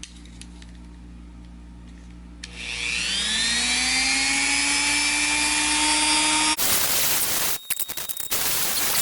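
A Dremel rotary tool with a small brush spins up about two and a half seconds in, its whine rising and then holding steady. From about six and a half seconds the brush is pressed onto the battery contacts, giving a loud, harsh scrubbing that cuts in and out as it grinds the oxidation off.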